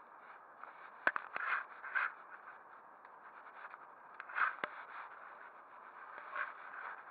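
Scraping and rubbing handling noise from an angler working a baitcasting rod close to a body-worn camera, with a few sharp clicks about a second in and again past four seconds.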